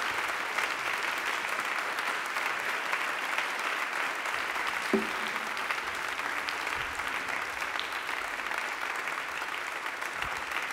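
Concert audience applauding steadily, with one short thump about halfway through.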